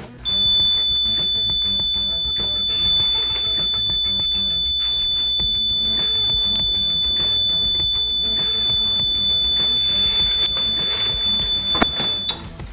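A smoke alarm sounding one continuous high-pitched tone, steady for about twelve seconds before it cuts off near the end, over background music.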